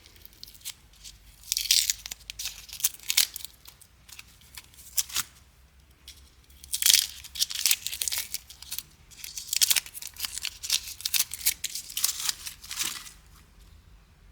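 Tape being peeled off a freshly painted plastic door handle, in short irregular rips that stop about a second before the end.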